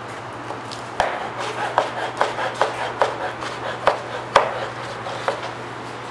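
Chef's knife chopping dried fruit (figs and apricots) on a plastic cutting board: sharp, irregular knocks of the blade hitting the board, about two or three a second, starting about a second in and stopping just past five seconds.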